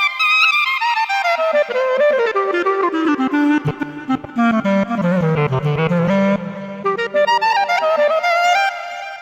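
Korg Krome workstation keyboard playing a woodwind patch in Balkan/Turkish ethnic style. A fast ornamented solo line runs down into the low register, climbs back up, and fades out near the end.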